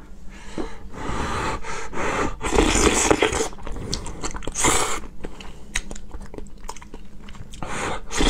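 Close-miked eating sounds: thick, jelly-like lotus root starch with nut and seed pieces slurped off a wooden spoon and chewed, in irregular bursts, the loudest about three and five seconds in.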